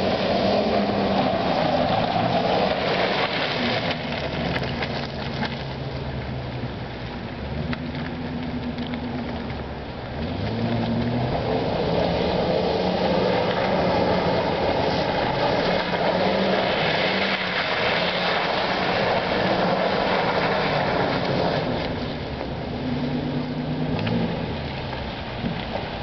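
Ford F-250's 6.8-litre V10 gasoline engine revving as the truck spins circles on snow, its pitch rising and falling over and over, with the hiss of tyres on snow underneath. It is loudest in the middle stretch.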